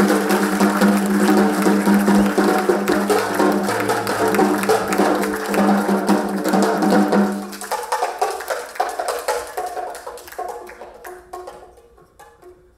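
Music with a held low note under fast percussion, stopping about seven and a half seconds in. After that come sparse light taps and clicks on a snare drum, growing fainter.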